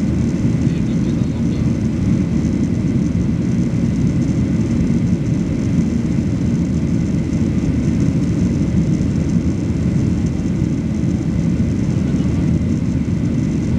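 Steady engine and airflow rumble inside the cabin of a Boeing 737-800 climbing after takeoff.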